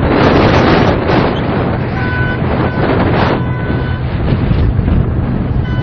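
Vehicle engine running steadily while driving, under gusts of wind noise on the microphone, the loudest in the first second. A thin pitched tone sounds on and off a few times around the middle.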